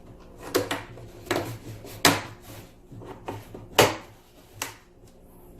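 Sharp knocks and clacks of foosball table parts being handled and fitted together during assembly, about six in all, the loudest about two and about four seconds in.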